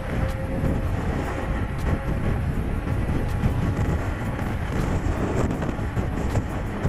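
Steady wind rumble on the microphone and tyre noise from a mountain bike rolling along at speed, with a few faint ticks.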